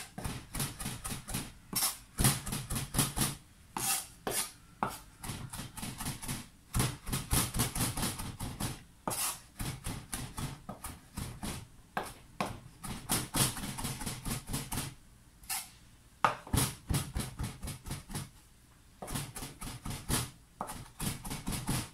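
Chef's knife chopping fresh parsley on a wooden cutting board: quick, even knife strikes several times a second, with a few short pauses.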